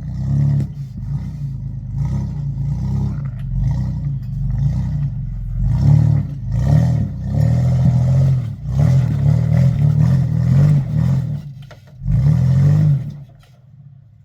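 4x4 truck engine revving up and down over and over, in short bursts of throttle as the truck works over trail obstacles. It eases off about a second before the end, leaving only a low background.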